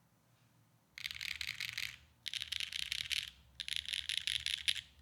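Neo65 Cu mechanical keyboard with HMX Sugar Rush linear switches on a polypropylene plate, its keys spammed rapidly. The key clacks come in three dense bursts of about a second each, the first about a second in, with short pauses between.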